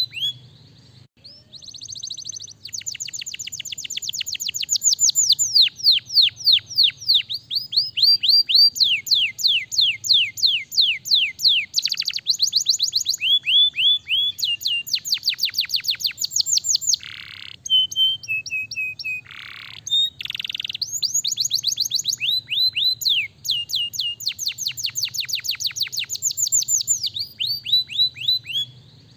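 Domestic canary singing a long, varied song of fast trills, each a rapid run of repeated downward-sweeping notes, with a few lower, longer notes near the middle.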